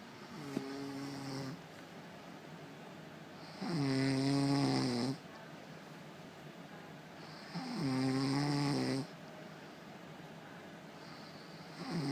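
A woman snoring in her sleep: a snore about every four seconds, each lasting a second or a second and a half. The first is softer, and a fourth begins near the end.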